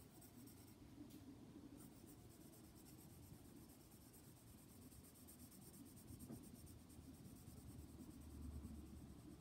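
Faint pencil scratching on sketchbook paper as fur is shaded in.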